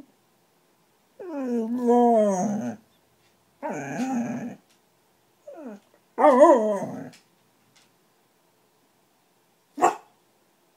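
Dog grumbling in protest: four drawn-out moaning vocalizations whose pitch bends up and down, one of them brief, from a dog frustrated at being kept off the bed. A single short sharp sound comes near the end.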